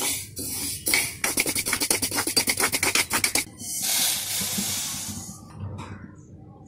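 Metal spatula scraping fenugreek seeds around a dry non-stick pan as they roast, in quick, regular strokes of several a second, the seeds rattling. About four seconds in, a steady hiss as the roasted seeds slide out of the pan onto a steel plate.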